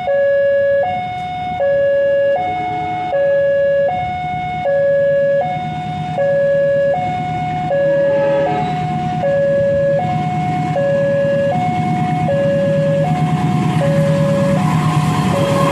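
Railway level-crossing warning alarm sounding a steady two-tone signal, alternating a high and a low note each held just under a second. From about halfway in, the low rumble of an approaching train grows beneath it.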